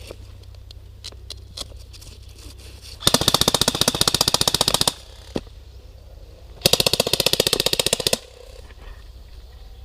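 Airsoft electric rifle firing on full auto: two loud bursts of rapid, evenly spaced shots, the first about two seconds long and the second about a second and a half, with a single shot between them.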